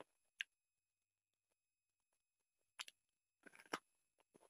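Faint eating sounds: a few short mouth clicks and smacks while chewing chicken curry and rice by hand, with near silence between them.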